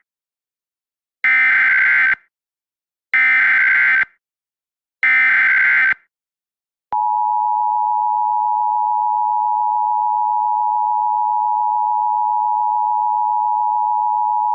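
Emergency Alert System tones: three one-second bursts of SAME header data, the digital code of the alert, then the two-tone EAS attention signal (853 and 960 Hz together), which starts suddenly about seven seconds in and holds steady, announcing an emergency message.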